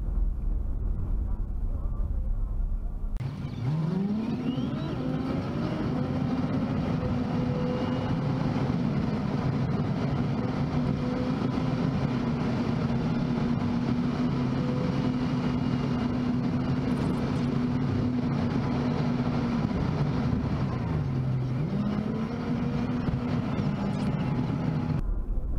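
Car engine running: after a low rumble, an engine tone starts abruptly and rises in pitch as the car accelerates, then holds steady at cruising speed. Near the end it dips briefly and climbs again, then cuts off suddenly.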